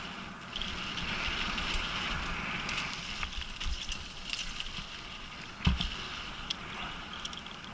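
Downhill mountain bike rolling fast down a dirt trail: steady tyre and wind noise with scattered clicks and rattles from the bike, and one heavy thump about three quarters of the way through.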